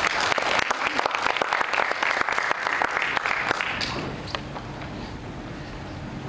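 Audience applauding, many hands clapping at once, dying away about four seconds in with a few last scattered claps, then quiet hall tone.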